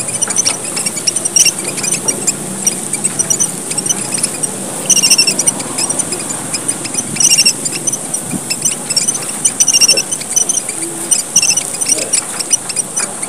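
Emprit merah papua, a tiny Papuan finch, calling busily: many short, high chirps in quick clusters that come again and again, as in a lure call for attracting the birds. A steady high hiss runs underneath.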